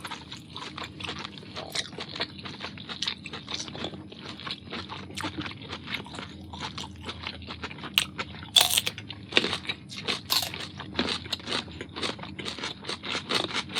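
Lobster shell being bitten and cracked, with chewing: a steady run of crisp crunches and clicks, loudest a little past halfway.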